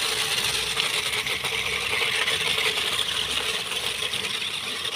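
Toy RC off-road cars driving over gravel: the steady whir of their small electric motors and gearboxes, with a grainy crunch of the wheels rolling on loose stones.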